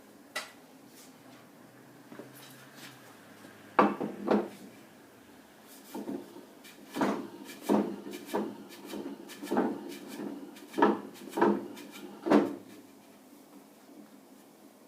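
A plywood sanding disk and faceplate being handled and fitted onto a wood lathe: a dozen or so irregular wooden knocks and clunks, most of them in the second quarter to the last quarter.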